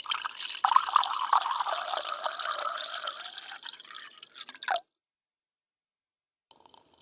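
Water running and splashing with a patter of drops, cutting off abruptly after almost five seconds; after a short silence a similar watery sound starts near the end.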